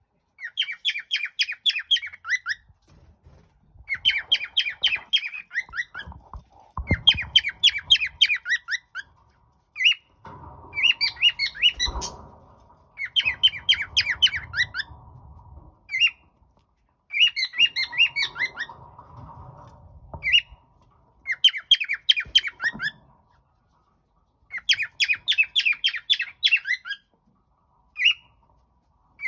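Cockatiel chirping in quick phrases of short, rapidly repeated whistled notes, each phrase about two seconds long, with brief pauses between, eight or so times over.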